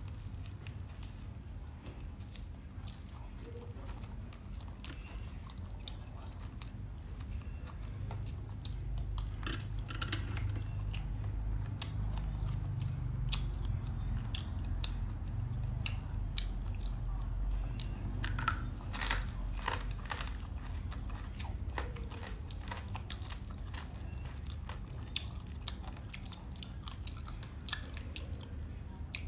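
A person chewing and biting crunchy food close to the microphone: scattered crisp crunches and mouth clicks, busiest through the middle, over a steady low rumble.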